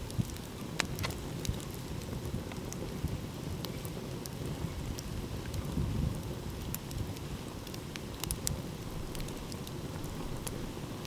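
Wood fire crackling, with scattered sharp pops and snaps, over a steady low rush of ocean waves.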